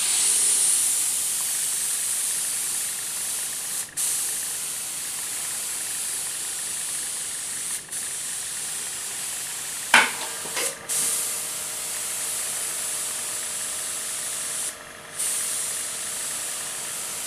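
Badger Renegade Velocity R1V airbrush spraying fine lines with its Fine Line air head: a steady high hiss of air that drops out briefly several times between strokes, with a sharp click about ten seconds in.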